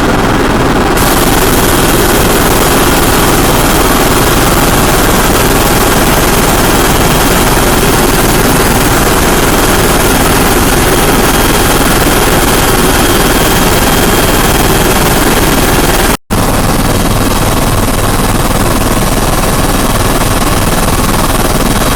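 Helicopter in flight, a loud, steady din of rotor and engine noise. It breaks off for an instant about sixteen seconds in.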